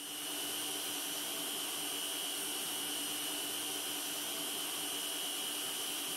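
Arno electric stand mixer beating whole eggs with its wire whisk. The motor comes up to speed in the first moment, then runs steadily with a constant high whine over a whirring hiss.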